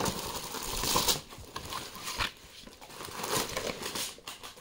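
Packaging crinkling and rustling with small irregular knocks as items are unpacked and handled by hand, loudest in the first second.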